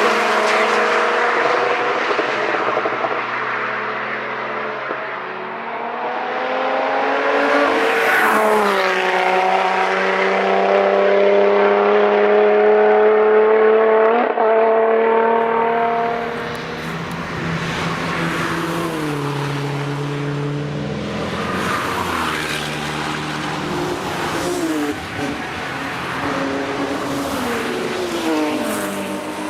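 Cars passing at speed on a race circuit one after another, engines at high revs. One holds a long, slowly rising note for several seconds before cutting off, and later passes bring quick drops in pitch.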